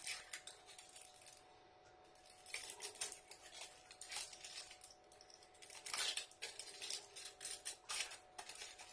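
Foil wrapper of a chocolate tablet being peeled open by hand: soft crinkling and crackling in short runs, with a brief lull about a second in.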